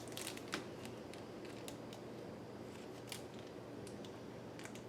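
Faint clicks and small plastic handling noises as hands work a Play-Doh Pop open to get at the tiny pony figure inside, a few sharp clicks spread across the moment over a low steady hum.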